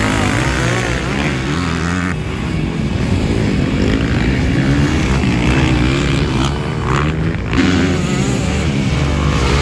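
Motocross dirt bike engines revving hard, their pitch rising and falling over and over as the bikes accelerate and back off through the dirt track's turns.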